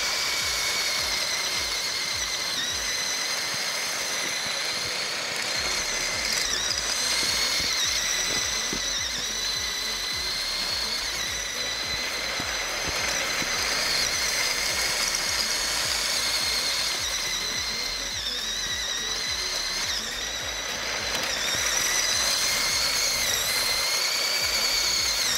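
Electric drive motors and plastic gearing of a Mould King 13152 building-block RC racing truck whining steadily as it drives, the pitch dipping briefly a few times as the speed changes.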